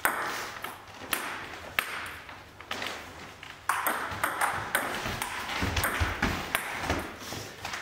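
Table tennis rally: the celluloid ball clicking sharply and quickly off the bats and bouncing on the table, about a dozen crisp ticks in a hard-floored hall.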